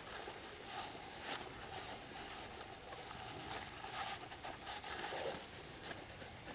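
Faint rustling and rubbing of a blue shop towel wiping around a freshly seated axle seal and the inside of a brake drum, with a few light scrapes and ticks.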